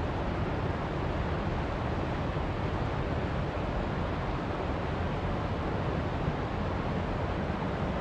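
Steady rush of a small mountain river pouring over rocks in little cascades.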